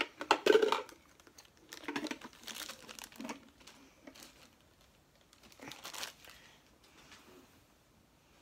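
Plastic packaging crinkling and rustling as it is handled, in irregular bursts, the loudest in the first second, with softer rustles later.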